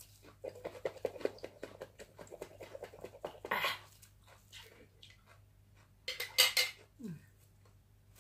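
Lid of a small jar being twisted open by hand: a run of small rapid clicks and scrapes, with a louder clatter about three and a half seconds in and the loudest one around six seconds.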